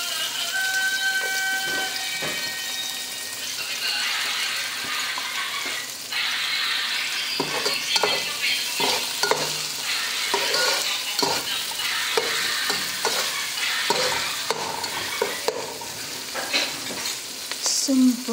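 Sliced red onions and garlic sizzling in hot oil in a frying pan. From about halfway through, a spatula scrapes and stirs them with repeated clicks against the pan.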